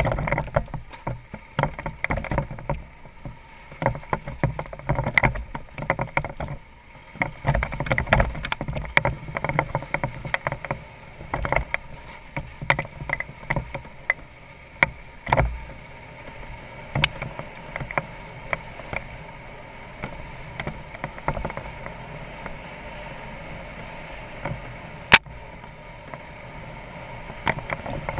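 BMW F650GS Dakar's single-cylinder engine running while the motorcycle rides over a rough dirt track, with frequent knocks and rattles from the bumps. The jolting is busiest in the first half, then the ride goes smoother and steadier, and a single sharp click comes near the end.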